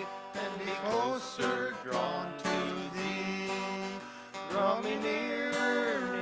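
A hymn sung by a small group of voices with a congregation, over a strummed acoustic guitar, with long held sung notes.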